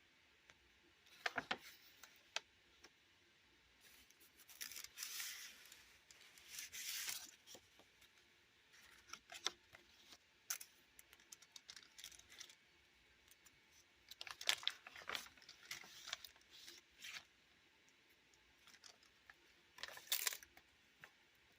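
Paper pages of an art journal being turned and handled: separate rustling, crinkling swishes with small clicks and taps between them.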